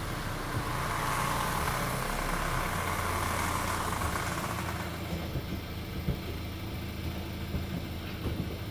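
Creaking of a Volkswagen Polo sedan's CV joint boots: a rubbing creak lasting about four seconds that then stops, over the engine running.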